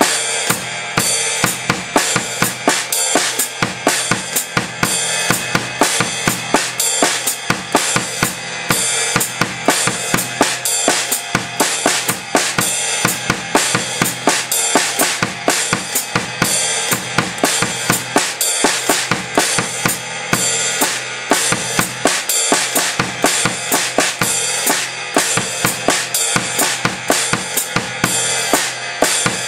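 Drum kit played in a steady groove: quarter notes on the ride cymbal, the hi-hat pedal closing on every eighth-note offbeat with a heel-toe foot motion, under a bass drum and snare pattern.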